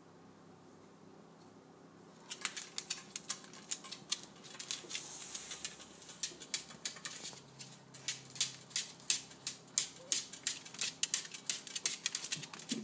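A shih tzu's claws scratching and tapping on a curved glass panel: fast, irregular clicking and scraping that starts about two seconds in.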